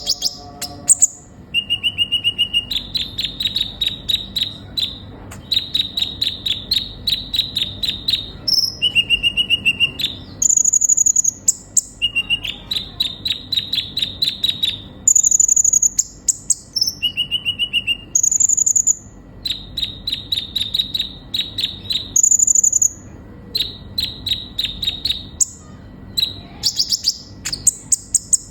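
Sunbird (kolibri ninja) singing: phrases of rapid, evenly repeated high chips, broken by short, thin, higher-pitched notes, over and over.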